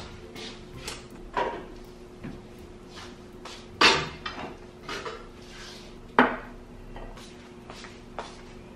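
Kitchenware clattering: dishes and containers knocking and clinking as they are taken from a kitchen cabinet shelf and set down on a counter. There is a string of separate knocks, the sharpest about four seconds in and another about six seconds in, over a faint steady hum.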